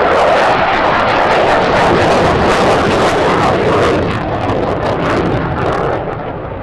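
F-16 Fighting Falcon jet flying past: loud, steady jet noise with a crackling edge, easing off a little near the end as it moves away.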